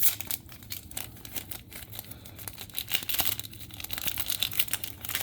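Foil wrapper of a Japanese Pokémon booster pack crinkling and tearing as it is opened by hand, in irregular crackles.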